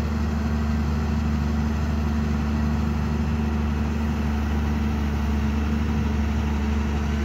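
Caterpillar hydraulic excavator's diesel engine running steadily as the machine digs and lifts a bucket of soil from a trench.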